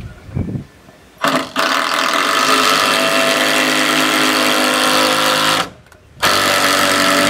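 A power driver running hard as it sinks a 6-inch TimberLOK screw through the top plate into a rafter: a long run of about four and a half seconds, a brief stop, then it starts again near the end.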